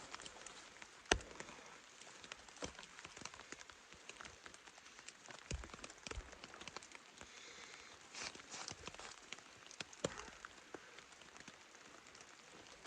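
Raindrops pattering on the shelter's fabric as a steady scatter of light ticks, with one sharp tap about a second in.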